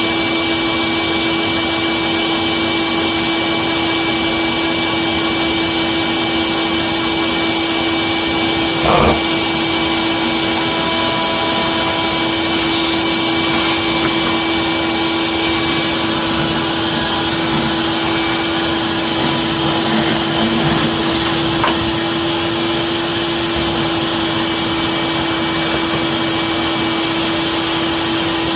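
Vacuum running steadily with a constant hum, drawing the remaining lint out of a dryer vent duct after brushing. A short knock about nine seconds in.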